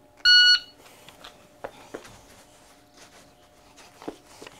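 Shot timer's start beep: one short, loud, high-pitched electronic beep just after the start, the signal to begin a timed precision-rifle drill. After it come faint knocks and shuffles as the shooter moves up and sets his rest bag and rifle on the wooden barricade.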